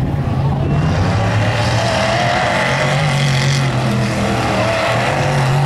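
Mega mud truck's engine running hard at high revs as it tears across a dirt course, its pitch wavering up and down with the throttle.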